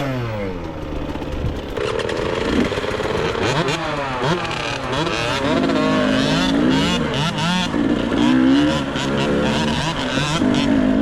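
Dirt bike engine revving up and down over and over as it is ridden, its pitch rising and falling with quick throttle changes. Likely the Husqvarna TC65, a small two-stroke.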